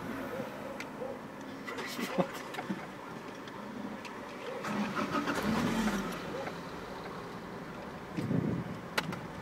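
Cars idling in a queued lane, heard from inside a car, with indistinct voices nearby. Two sharp clicks stand out, about two seconds in and again near the end.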